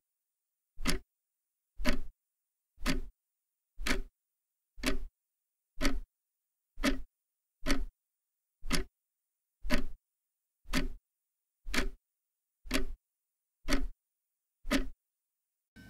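A clock ticking slowly and evenly, one tick a second, each tick sharp with a low thump under it and dead silence between ticks.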